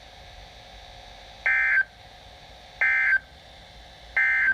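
Emergency Alert System end-of-message signal: three short, identical bursts of two-tone SAME digital data, about a second apart, marking the close of the Special Marine Warning.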